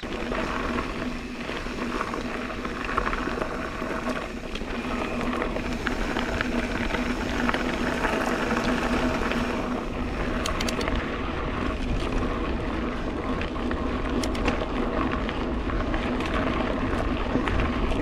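Mountain bike rolling along a dirt singletrack: a steady rush of tyre and wind noise with a constant low hum. A few brief clicks and rattles come around the middle.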